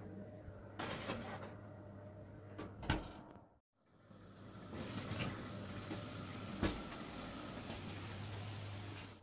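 Kitchen handling noises: a few sharp knocks, about a second in, near three seconds and near seven seconds, over a steady hiss and low hum. The sound cuts out briefly about three and a half seconds in.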